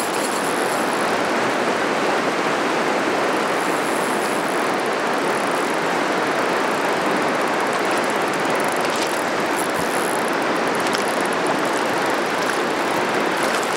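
A river's current rushing steadily over a shallow, rippled run, a constant even rush of water.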